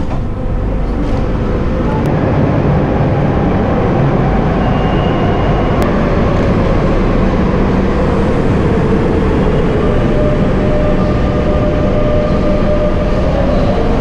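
Madrid Metro train at the platform, a steady rumble with a faint electric motor whine. Near the end the whine rises in pitch as the train starts to pull away. A short high tone sounds about five seconds in.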